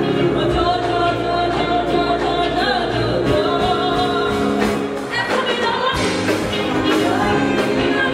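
A woman singing a melodic line into a microphone over live band accompaniment, amplified through a PA. The low end of the backing drops away for about a second around five seconds in.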